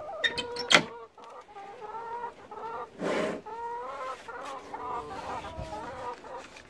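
Hens clucking in a chicken coop, a run of short wavering calls. A few sharp metal clicks near the start come from the coop's hinged hatch being opened, and there is a brief rustle about three seconds in.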